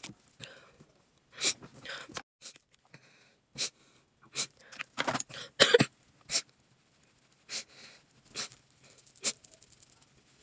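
A person sniffling in short, irregular sniffs and breathy gasps, with a louder run of sobbing breaths about five to six seconds in.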